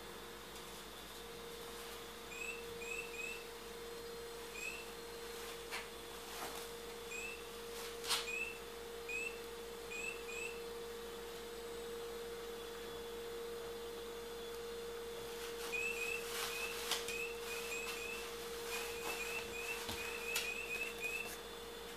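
Electronic chirping owl toy (an Adafruit Gemma chirping plush owl circuit stuffed in a sock) giving short, rising bird-like chirps in quick bursts of two or three as the dog shakes it, sparse at first and coming thick and fast near the end. A steady hum runs underneath, with a few sharp knocks on the floor.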